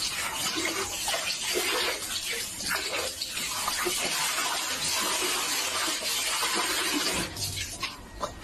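Running water, a steady rushing hiss that cuts off suddenly near the end.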